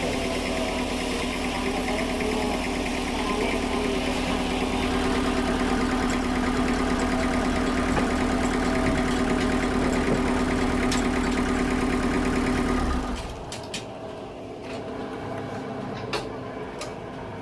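Sawmill machinery running with a steady hum that stops abruptly about thirteen seconds in, leaving a quieter background with a few sharp clicks or knocks.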